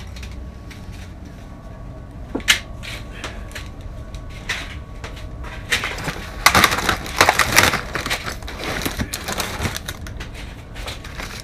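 Plastic blister packs of fishing lures clicking and crinkling as they are handled and sorted, with a louder burst of crackling about two-thirds of the way through as a hand rummages among the packs in a cardboard box.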